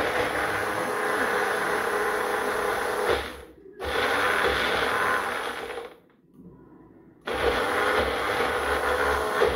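Small press-down personal blender grinding chilies, tamarind and tomato for a chutney, run in three pulses. It cuts out for a moment about three seconds in and for about a second around six seconds, each time starting again as the cup is pushed down.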